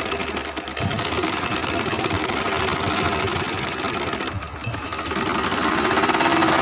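Vintage Singer sewing machine, freshly cleaned and oiled and driven by an add-on electric belt motor, stitching fast with a steady rapid clatter. The sound briefly drops away about four and a half seconds in, then picks up again.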